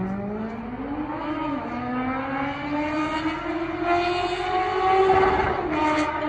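Kawasaki Z750's inline-four engine through an Akrapovic exhaust, pulling hard: the pitch climbs quickly, dips about a second and a half in, then climbs steadily to its loudest point near the end before dropping back.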